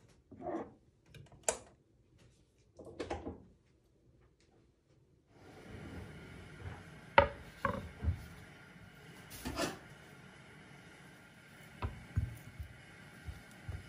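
Tableware being handled: short separate knocks and clacks, then, over a light room hiss, a bamboo tray and a ceramic plate being set down and knocked together, with one sharper clatter in the middle.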